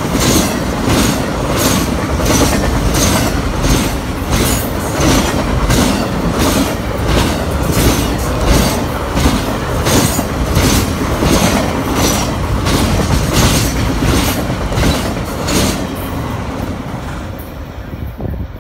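Triple Crown RoadRailer train passing at close range: trailers rolling on their rail bogies with a steady rumble and a regular clickety-clack about two to three times a second. The sound fades away near the end as the last trailer goes by.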